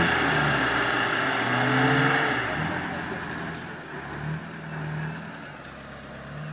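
Off-road vehicle engines revving hard under load while a Lada Niva stuck in deep mud is pulled out on a tow line by a UAZ-469. The revs rise and fall and ease off after about two and a half seconds.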